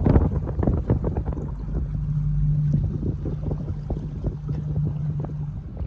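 Small boat under way on calm water: wind buffets the microphone over a low rumble of water and hull. A steady low motor hum comes in about two seconds in and drops away near the end.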